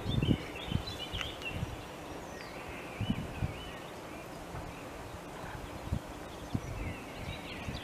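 Small birds chirping over steady outdoor background noise, with a few soft low knocks.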